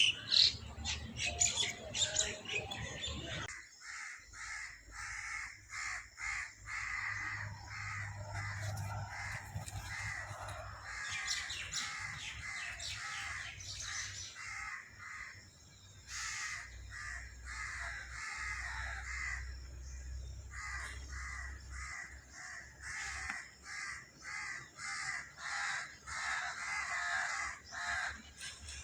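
Crows cawing over and over, with smaller birds chirping among them in the morning bird chorus. A faint steady low rumble runs underneath, and the first few seconds are louder and noisier before it settles.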